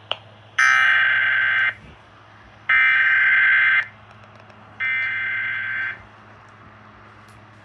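Emergency Alert System SAME header: after a short click, three bursts of digital data tones, each about a second long with about a second's pause between. It is the coded opening of an alert, here a severe thunderstorm warning.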